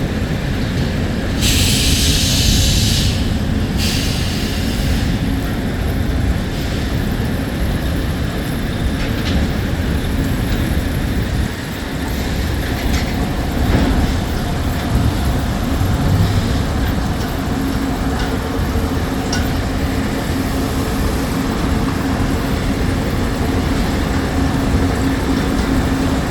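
Sawmill machinery running at the log deck and debarker infeed: a loud, steady rumble of conveyors and machines. A short hiss comes about a second and a half in, and a steady hum grows clearer in the second half.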